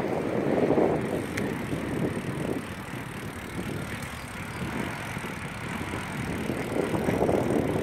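Wind buffeting the microphone: an irregular rumbling noise that swells about a second in and again near the end, with one light click a little over a second in.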